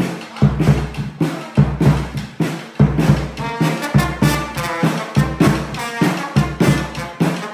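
Bass drum struck with a mallet in a steady beat. About three seconds in a trombone joins, playing a melody over it.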